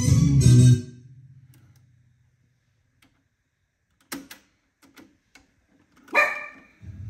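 Music playing from a Kenwood KX-59CW cassette deck cuts off about a second in as its power is switched off and fades away. After a silence the deck's transport keys click a few times around four seconds in, a short louder sound comes about six seconds in, and sound starts up again right at the end.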